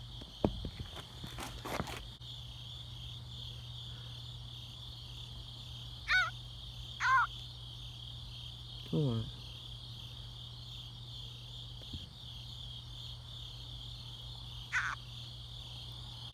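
Steady night chorus of crickets, with a few short pitched calls over it, one falling steeply in pitch about nine seconds in, and some clicks from handling near the start.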